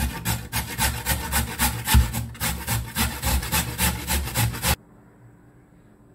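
Carrot being grated on a stainless-steel box grater, with quick, even rasping strokes about five a second that stop abruptly near the end.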